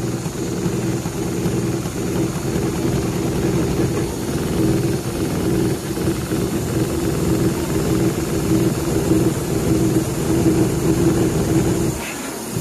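Richpeace CNC perforation machine running, its needles rapidly punching holes in leather with 1.5 mm diameter punches; a steady mechanical hum with a fast, even chatter, easing off briefly near the end.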